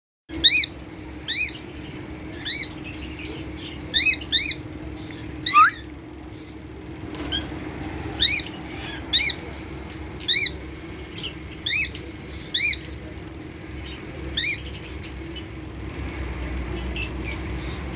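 Cockatiel calling: short, arched chirps repeated about once a second, some in quick pairs, over a steady low hum.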